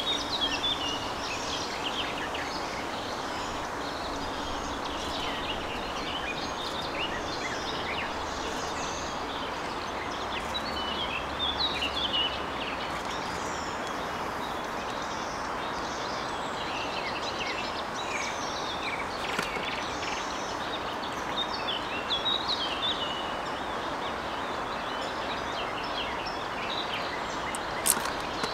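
Male common kingfisher giving short, high alarm calls again and again over a steady background hiss, with one sharp click near the end.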